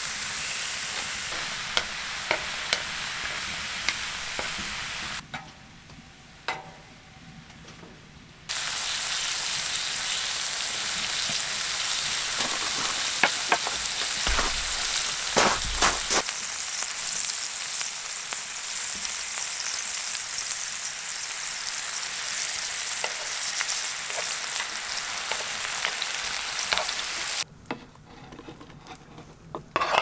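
Scallops, then thin slices of beef brisket, sizzling in oil in a frying pan, with occasional sharp clicks as metal tongs turn the food against the pan. The sizzle drops away for a few seconds about five seconds in and again near the end.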